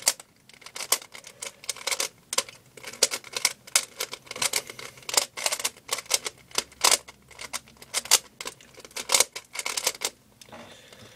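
3x3 Rubik's cube being turned rapidly by hand, its plastic layers clicking and clattering in quick irregular runs. The turning stops about ten seconds in.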